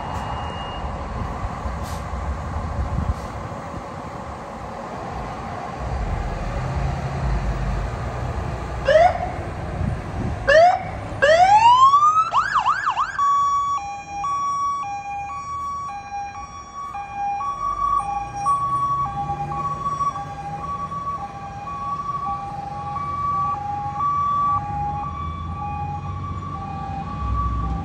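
Fire engine's electronic siren: several quick rising sweeps about a third of the way in, then the two-tone hi-lo, alternating between a high and a low tone about once a second. A low engine rumble runs beneath as the truck pulls out.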